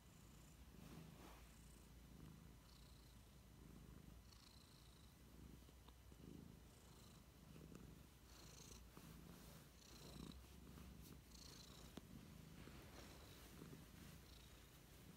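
Domestic cat purring faintly while being stroked, the purr swelling and easing with each breath about once a second.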